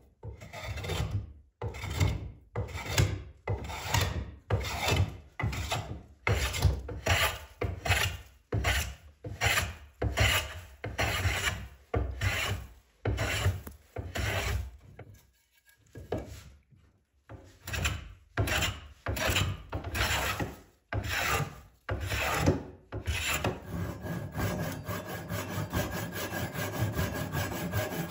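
Hand plane shaving a wooden board, one long rasping stroke after another with short pauses, about one and a half strokes a second. Near the end this gives way to a hand saw cutting the wood with quick, even strokes.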